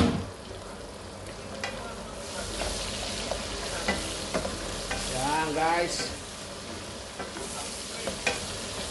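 Pork and onion wedges sizzling in a hot metal wok while a spatula stirs and scrapes them, with scattered clicks of the spatula against the pan and a sharp knock at the very start.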